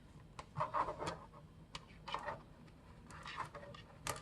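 Quiet handling noises of a laptop and small parts on a desk: short scrapes and rubbing with light clicks, and two sharper clicks near the end.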